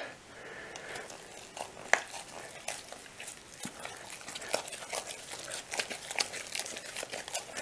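A knife stirring stiff sourdough bread dough in a glass jug: soft sticky squishing with irregular light clicks and taps, one sharper click about two seconds in.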